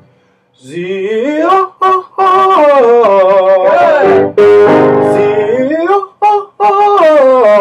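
A tenor singing sustained, sliding phrases with vibrato and short breaths between them, with piano accompaniment. He sings at about mezzo forte in his upper register, which the teacher judges too little energy: she wants forte.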